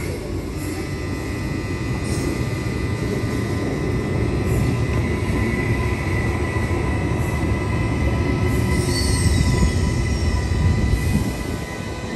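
Queensland Rail electric suburban train running past close by: a steady rumble of wheels on rails that grows louder, with a few sharp clicks early on, steady high tones and a brief falling whine about nine seconds in. The rumble eases shortly before the end.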